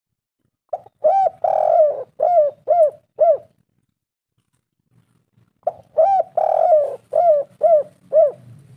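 Spotted dove (tekukur) calling: two cooing phrases a few seconds apart. Each phrase is a short coo, a longer drawn-out coo, then four or five short, evenly spaced coos.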